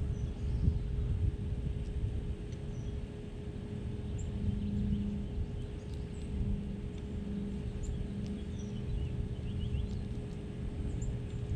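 Outdoor ambience: a steady low rumble, with faint, short high bird chirps scattered through. A low hum comes and goes several times in the middle.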